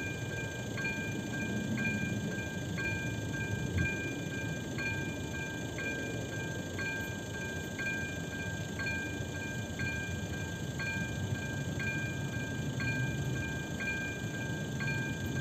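Electronic warning bell of an AŽD 97 railway level crossing, dinging about once a second with each stroke ringing on; it signals an approaching train.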